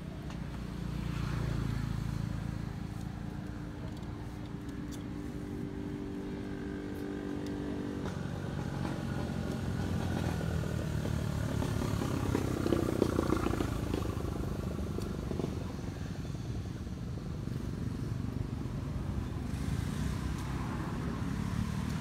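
Motor vehicle engine running steadily, growing louder toward the middle and easing off again.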